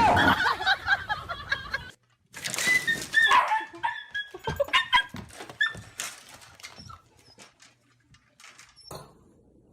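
A pet animal making short, high-pitched cries in quick succession, with clicks and knocks between them. The sound stops abruptly about two seconds in, then picks up again and thins out toward the end.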